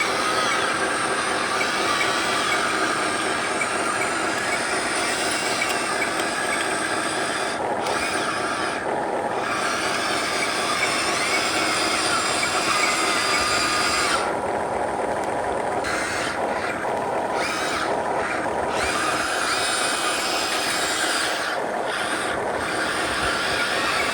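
Radio-controlled truck's electric motor and gearbox whining, the pitch wavering with the throttle and the high whine dropping away briefly several times.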